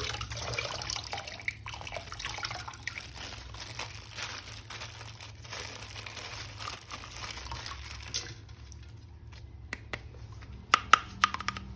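Water running and splashing over a plastic action figure as it is washed; the water stops about eight seconds in. A few sharp clicks from the plastic toy being handled follow near the end.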